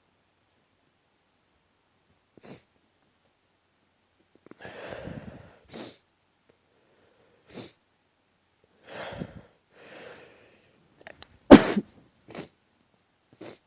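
A person sneezing from allergies. Several short sniffs and breathy build-ups lead to one loud sneeze about eleven and a half seconds in, followed by a couple more short sniffs.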